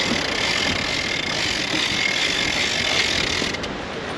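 Boat engine running in gear under a steady rushing noise of wind and water, which thins briefly near the end.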